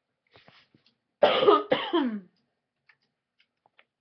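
A person coughing twice in quick succession, about a second in: a sick cough.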